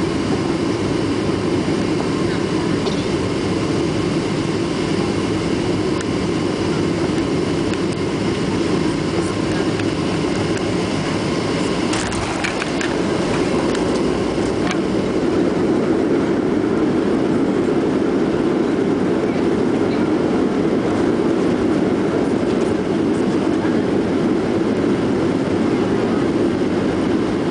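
Cabin noise in a Boeing 737-700 with CFM56 engines as it lands: a steady, loud mix of engine and airflow noise. A few brief rattles come around touchdown, about twelve seconds in. The noise grows a little louder from about sixteen seconds in as the jet rolls out on the runway.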